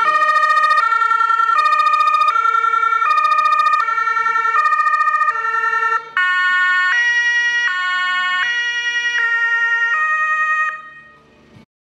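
German fire-service two-tone siren (Martinshorn) alternating steadily between two pitches. About six seconds in there is a short break, after which the pair of tones is higher. It fades out near the end.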